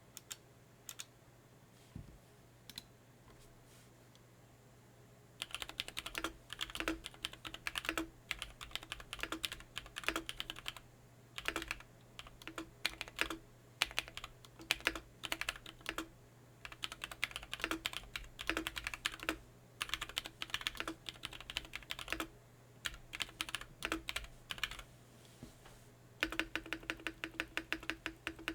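Mechanical keyboard with stock Durock POM switches being typed on: a few single keystrokes at first, then bursts of fast typing separated by short pauses, with a dense fast run near the end.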